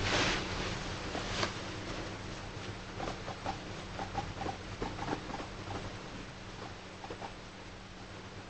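Guinea pig chattering contentedly in soft, short "hoyo hoyo" notes, a loose string of little blips while it is being stroked. Rustling of its fabric bed in the first second or so as it settles.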